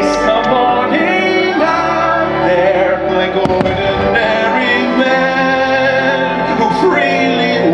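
Fireworks-show soundtrack, music with singing, played loud over the park's speakers, with a firework bang about three and a half seconds in.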